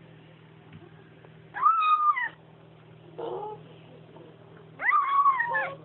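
Bengal kitten meowing: two loud drawn-out meows that rise and then fall in pitch, with a fainter short meow between them.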